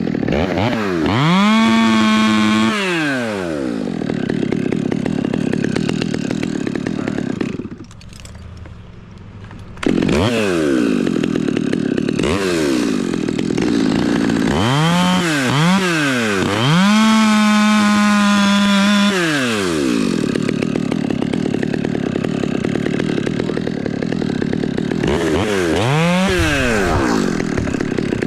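Chainsaw running, revved up to full throttle and back down several times, its pitch rising and falling with each rev. Near the middle it drops much quieter for about two seconds, then comes back at full volume.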